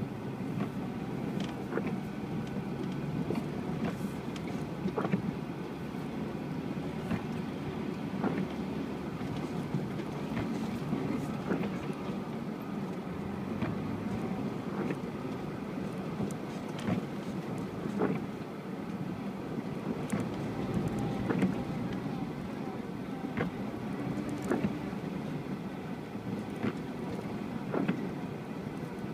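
UAZ Patriot SUV running steadily while driving off-road, with frequent short knocks and rattles.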